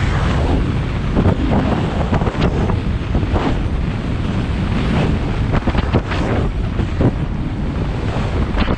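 Wind buffeting the microphone of a camera carried by a skier moving downhill, a constant low rumble, with short hissing swishes of skis scraping over packed, groomed snow about once a second.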